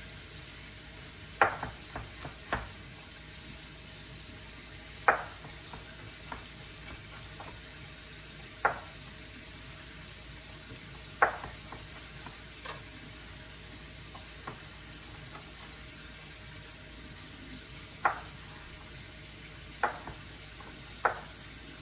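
Chef's knife knocking against a plastic cutting board as garlic cloves are cut: about a dozen separate sharp knocks, spaced irregularly one to several seconds apart, over a steady faint hiss.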